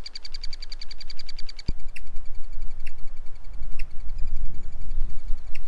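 Woodpeckers calling from their nest hole in a dead pine: a rapid, steady, high-pitched chatter that turns fainter about two seconds in, followed by a few sharp single calls about a second apart. Wind rumbles on the microphone, with one thump just before the chatter fades.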